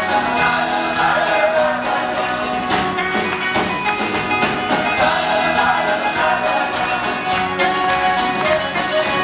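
A folk-rock band playing a song live, with banjo, fiddle, mandolin, acoustic and electric guitars, accordion and drums, and voices singing over the steady beat.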